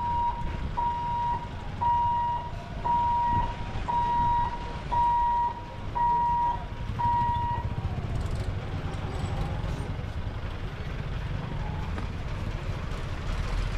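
Electric level-crossing barrier's warning buzzer sounding a steady high beep about once a second while the boom lifts, eight beeps in all, stopping about seven and a half seconds in. Under it and after it, the low rumble of motorcycles and light vehicles driving over the crossing.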